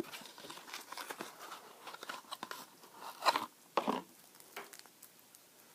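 Foil-wrapped chocolate surprise egg and its packaging being handled: scattered light crinkles and clicks, with two louder rustles about three and four seconds in.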